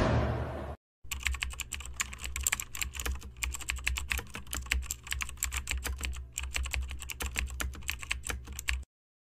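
Keyboard typing sound effect: a rapid, irregular run of key clicks over a low steady hum, cutting off suddenly near the end. It accompanies title text typing out letter by letter.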